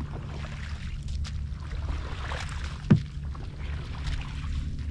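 Kayak paddle strokes swishing and splashing through water thick with floating vegetation, one stroke about every second and a half to two seconds, over a steady low rumble. A single sharp thump about three seconds in is the loudest sound.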